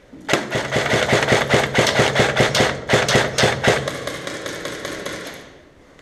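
Electric airsoft rifle firing on full auto in two long rapid bursts, the shots clattering over the gearbox motor's whir.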